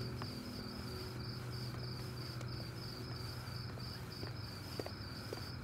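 Crickets chirping in a steady, even rhythm, about two or three chirps a second, over a low hum that slowly fades.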